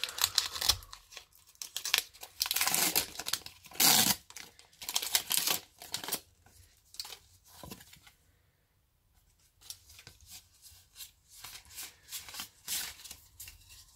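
Foil wrapper of a Pokémon Lost Thunder booster pack being torn open by hand, in a run of ripping and crinkling bursts. After a short pause, fainter scrapes and clicks of the trading cards being slid out and fanned in the hands near the end.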